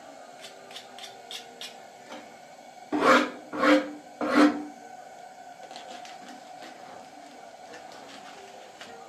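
Three rough scraping strokes in quick succession, a little over half a second apart, after a few light taps.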